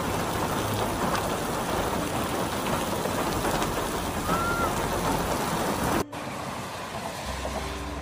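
Heavy rain on a flooded road, with runoff washing across it: a steady hiss. About six seconds in it cuts off abruptly to a quieter rushing with a steady low hum.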